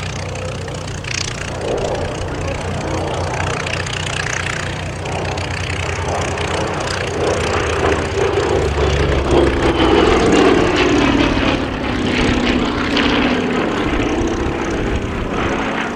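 Douglas A-26C Invader's twin radial piston engines running, growing louder to a peak about ten seconds in, then easing off a little.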